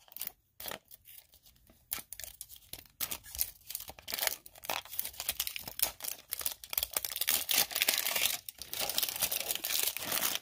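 Plastic wrapping on a toy surprise egg being torn open and crinkled by hand, irregular crackling that grows denser and more continuous toward the end.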